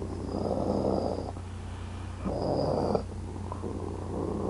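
A person's imitation of an angry wolf's growl: rough, rasping growls in bursts, the loudest at the start and another about two and a half seconds in, ending abruptly.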